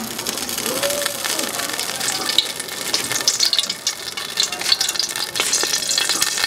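Soybean oil being poured in a steady stream into a large hot metal pot, crackling and sizzling as it heats on the pan.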